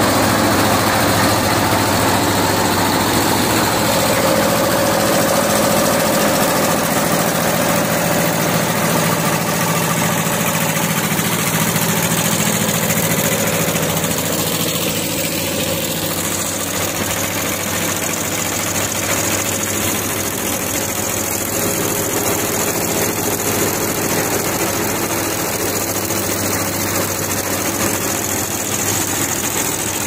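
Diesel engine of a concrete mixer running steadily at a constant speed.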